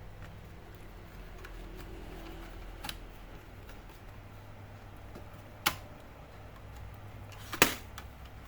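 Three sharp clicks, the last near the end the loudest, as laptop parts are pressed and snapped into place during reassembly, over a steady low hum.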